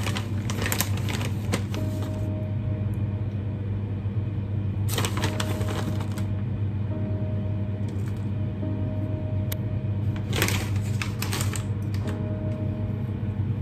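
Plastic bag of shredded mozzarella crinkling and crackling in three short bursts, each about a second long, near the start, about five seconds in and about ten seconds in, as the cheese is shaken out of it. Soft background music plays throughout.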